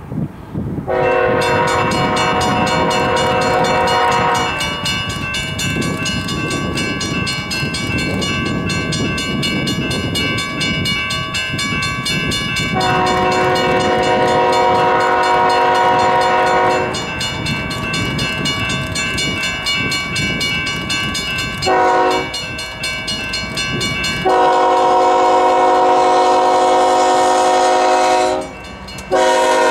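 Lead GE C45ACCTE diesel locomotive's air horn sounding a multi-note chord in the grade-crossing pattern: long, long, short, long. The last blast breaks briefly and resumes near the end. Under the horn the diesel rumble and rail noise of the approaching intermodal train grow louder.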